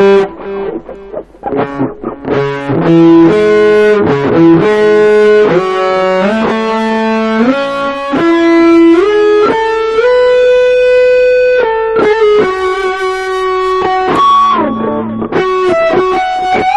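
Electric guitar from a black Les Paul-style guitar playing a single-note lead solo in C-sharp minor, with notes slid and bent up and down the neck and a long held note about ten seconds in.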